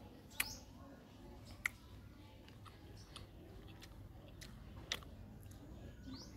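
A person eating fruit: quiet chewing with a few sharp mouth clicks spaced a second or more apart.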